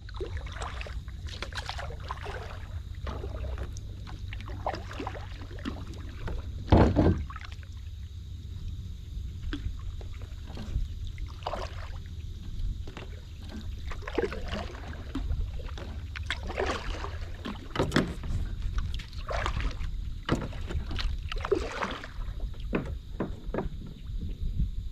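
Kayak paddle strokes: the blades dip and splash in the water every second or two over a steady low wind rumble on the microphone, with one louder thump about seven seconds in.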